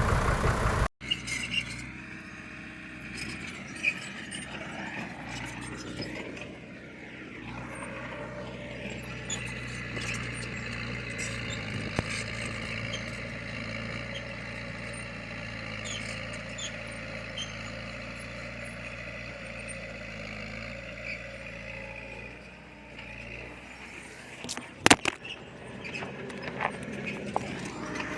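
Diesel engine of heavy earthmoving machinery running steadily at a moderate level, after a louder engine stops about a second in. A sharp clank stands out near the end.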